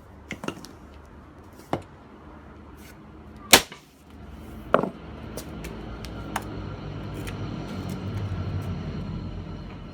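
Sledgehammer blows striking a steel bicycle U-lock: four sharp strikes, the loudest about three and a half seconds in and another a second later. A low rushing noise swells through the second half.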